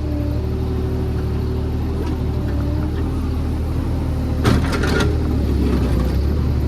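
A JCB JS30 Plus mini excavator's diesel engine running steadily under work, with a short clatter of knocks about four and a half seconds in.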